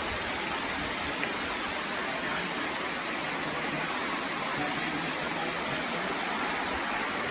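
A steady, even rushing hiss with no distinct knocks or changes, the kind made by heavy rain or running water.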